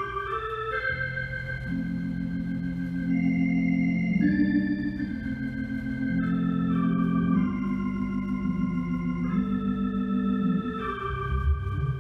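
Console organ played solo: slow, sustained chords, each held a second or two before moving to the next.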